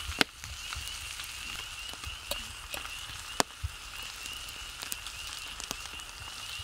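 A steady, high, pulsing trill of night-time calling creatures, with a few sharp clicks of a fork against an enamel plate; the loudest click comes about three and a half seconds in.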